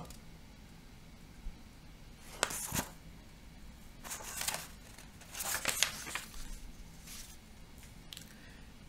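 Sheets of printed paper rustling and crinkling as pages are flipped over and back, in several short bursts.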